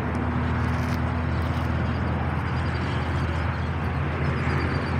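Steady low rumble of freeway traffic.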